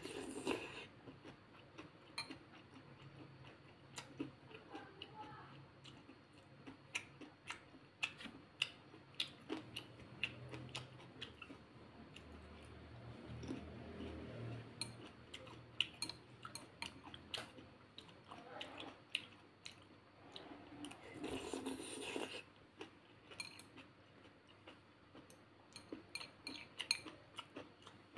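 Close-up eating sounds of noodle soup: chewing and slurping, with chopsticks and a metal spoon clicking many times against a ceramic bowl. Two longer slurps stand out, one right at the start and one about three-quarters of the way through.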